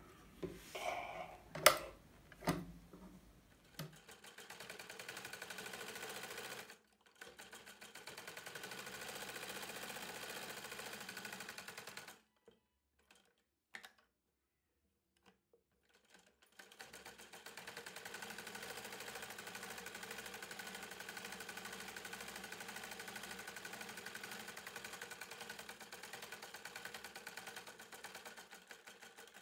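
Sewing machine stitching cloth in three runs with a rapid, even needle rhythm, stopping briefly twice; the last run is the longest. A few handling clicks come before the machine starts.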